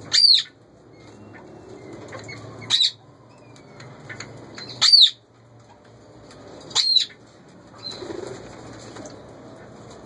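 Indian ringneck parakeet calling: four loud, sharp calls about two seconds apart, each a brief note that rises and falls in pitch.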